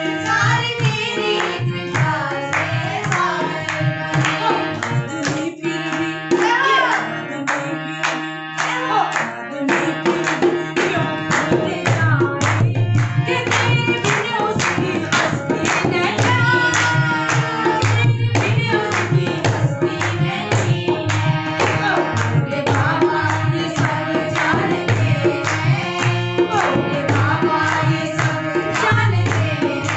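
A woman singing a Hindi devotional bhajan to her own harmonium accompaniment, with a dholak drum played by hand and hand clapping keeping the beat. The drumming grows heavier about ten seconds in.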